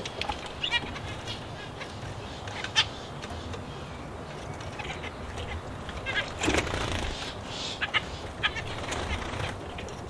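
Mixed aviary birds chirping and calling in short scattered notes, busiest and loudest in the second half, over a steady low hum.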